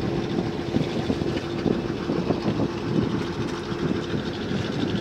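Fishing boat's engine running with a steady hum.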